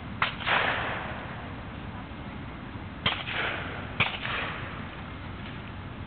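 Three sharp cracks, each followed at once by a short hiss, from a Fowler steam ploughing engine: the first just after the start, then two about a second apart near the middle.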